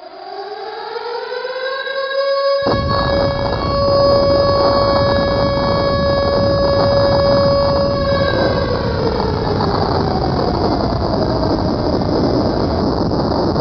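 Air-raid siren winding up to a steady high wail, holding, then winding down and wavering near the end. A steady rumbling noise cuts in abruptly about three seconds in and runs underneath.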